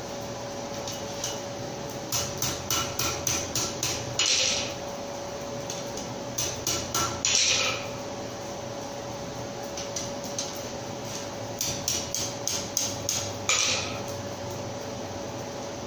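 Blacksmith's hand hammer striking hot iron on an anvil in three runs of quick blows, about five a second, each run ending in a brief louder noisy burst. A steady hum sits underneath.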